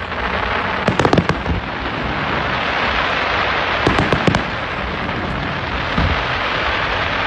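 Fireworks display: clusters of sharp bangs from bursting shells about a second in, again around four seconds in and once near six seconds, over a steady hiss.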